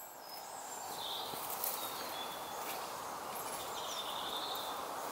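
Steady low hiss of a small meths (alcohol) spirit burner flame, with a few faint bird chirps over it.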